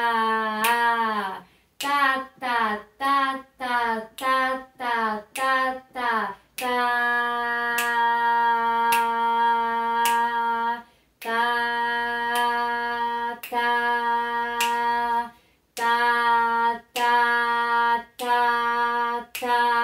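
A woman chanting a rhythm-reading exercise on the syllable "tá" at one steady pitch: a run of eight quick eighth-note syllables, then a whole note held for four beats, two half notes held two beats each, and four quarter-note syllables. A sharp hand beat marks the pulse about once a second.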